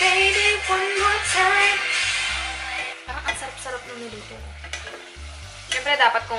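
Food sizzling as it fries in a pan, stirred with a wooden spoon. A song with a woman singing plays over it, loud for the first three seconds, then dropping back, with a short sung phrase near the end.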